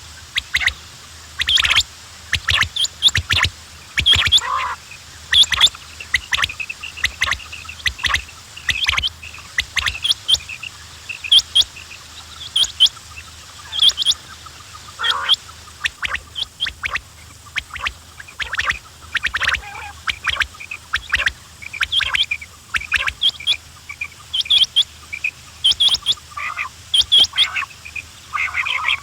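Quails calling over and over in short, sharp, high calls that come in quick runs and overlap.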